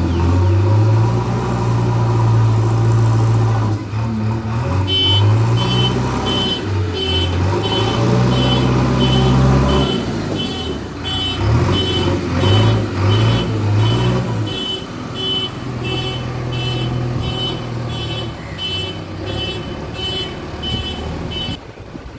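Heavy construction machinery engine running and changing load, its low hum rising and falling, with a reversing alarm beeping about twice a second from about five seconds in until near the end.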